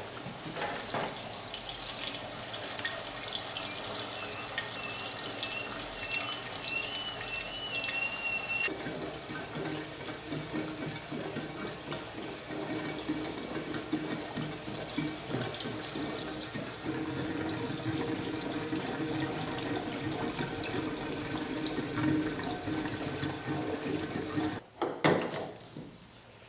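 Gasoline pouring from a plastic jerry can through its spout into a pickup's fuel tank filler, a steady gurgling pour that stops shortly before the end, followed by a short knock.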